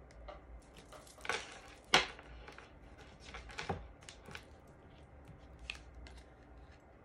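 Tarot cards being handled: a few short scraping, rustling sounds as cards are slid off the deck, with one sharp tap about two seconds in.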